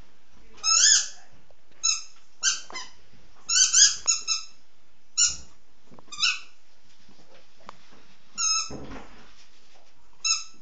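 A Jämthund chewing on a squeaky toy, making about ten short, high squeaks in irregular bunches of one to three.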